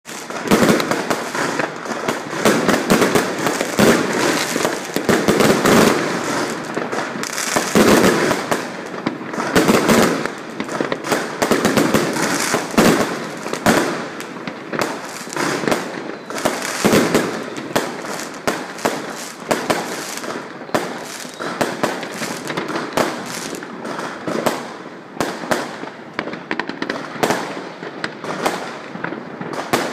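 Consumer fireworks going off in a dense, unbroken barrage: many overlapping bangs, pops and crackling from aerial bursts and firecrackers, thinning a little in the second half.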